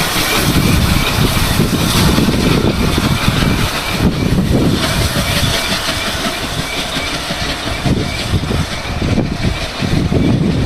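Class 24 steam locomotive hauling a train of wagons: a loud, continuous rumble with uneven surges.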